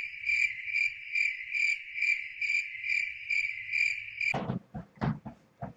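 A steady high-pitched tone pulsing about two and a half times a second, which cuts off suddenly about four seconds in, followed by a few short clicks and knocks.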